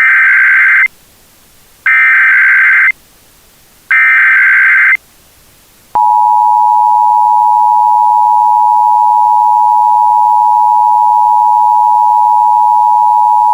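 Emergency Alert System opening: three bursts of the SAME digital header data, each about a second long and about a second apart, as a harsh screech. Then the two-tone EAS attention signal (853 and 960 Hz) comes in about six seconds in and holds steady, announcing an emergency alert.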